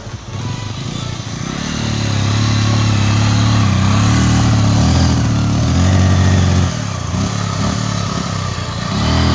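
Motorcycle engine running under load as the bike is ridden, its pitch shifting in steps; it drops off about two-thirds of the way through and picks up again near the end.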